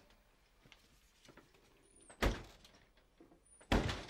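An old refrigerator's door with a lever latch handle being shut: two loud thuds about a second and a half apart.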